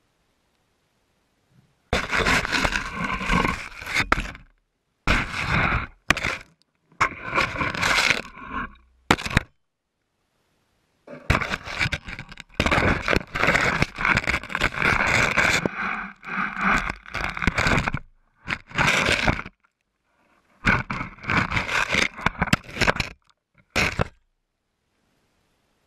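Close scraping and knocking as an elephant's trunk and feet push, kick and flip a GoPro camera over dry sandy ground, in five bursts with short silent pauses between.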